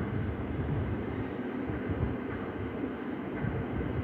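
Chopped onion and green chillies frying in a stainless-steel kadai while a steel spoon stirs them, over a steady low rumble.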